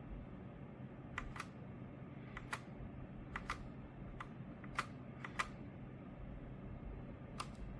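Keys of a Redragon K689 mechanical keyboard with linear switches pressed one at a time, about a dozen irregular clicks, several in quick pairs, over a steady low hum.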